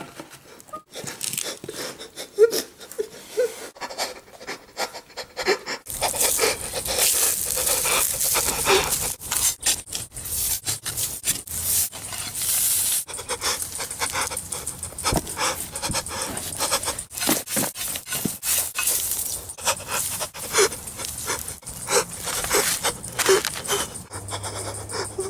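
A man panting and sobbing heavily, over the scrape and knock of a shovel digging into soil.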